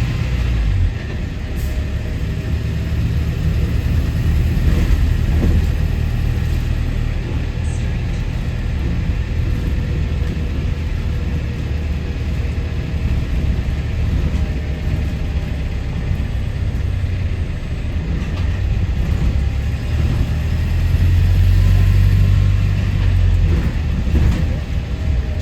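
Go-Ahead London bus WHV154 heard from inside while riding: a steady, loud low engine drone with road noise, growing stronger for a few seconds near the end.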